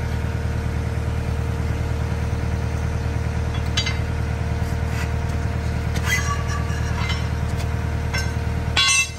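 Heavy-equipment engine idling steadily, with a few sharp clinks and knocks as the rubber track is worked onto the loader's sprocket and idlers. The loudest clank comes near the end.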